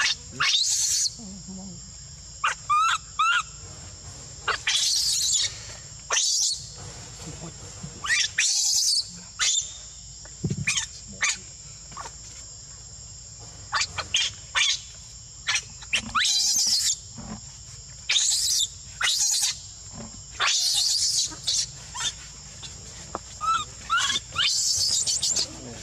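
Infant macaque screaming in distress, a long series of short, loud, harsh screeches with a few quick rising squeaks among them.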